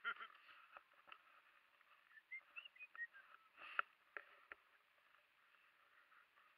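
Near silence: a faint hiss with a few soft clicks and some short high chirps near the middle.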